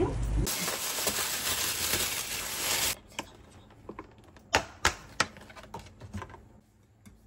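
A loud, steady rushing noise that cuts off suddenly, followed by a string of sharp plastic clicks and crackles, three loud ones close together, as the lid of a clear plastic strawberry clamshell is unsnapped and opened.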